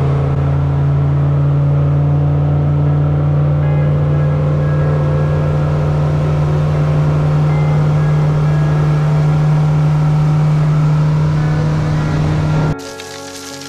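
Boat's outboard motor running steadily at cruising speed, with the rush of wake and wind over it. About a second before the end it cuts off suddenly and music begins.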